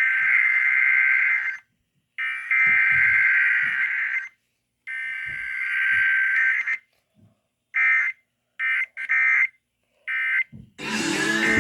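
Emergency Alert System SAME data tones: three long bursts of buzzing digital data, about two seconds each with half-second gaps (the alert header repeated three times), then a few short bursts typical of the end-of-message code. Music comes in just before the end.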